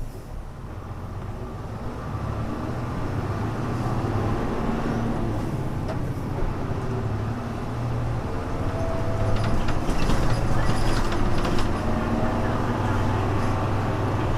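Hino Blue Ribbon U-HU2MLAA city bus engine pulling hard under acceleration, its pitch and loudness climbing, with a brief dip a little past halfway. A patch of rattling clicks comes in near the end. It has the muffled tone and odd noises that the owner calls typical of buses of this era.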